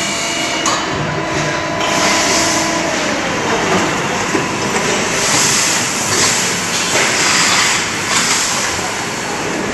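Double-spindle CNC turning machine running: a steady, dense hissing machining noise with faint whining tones, one of which glides down a couple of seconds in.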